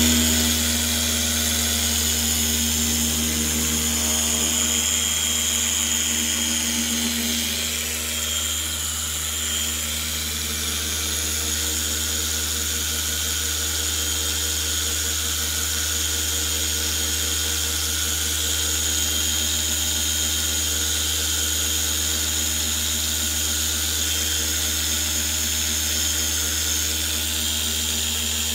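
Oscillating dual-action polisher running steadily, its microfiber cutting disc working compound over a plastic headlight lens. A steady motor hum and whine with no change in speed.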